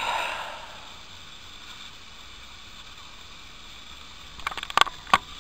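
A short breathy exhale, then faint steady room hiss. Near the end come a few sharp clicks and knocks as the handheld camera is handled.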